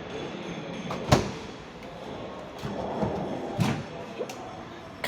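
A sharp thump about a second in, followed by a few softer knocks and some rustling.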